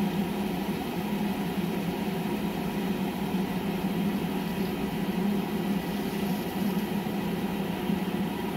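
Steady, unchanging hum of running pool equipment: the Pentair MasterTemp 400 gas pool heater's fan and the circulation pump, as the heater calls for heat in its start-up sequence before the gas valve opens and it lights.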